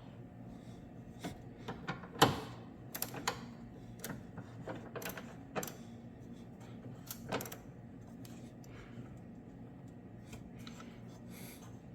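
Hand tools clicking and knocking against metal during motor mount work: a dozen or so irregular sharp clicks and taps over a low steady hum, the loudest knock about two seconds in.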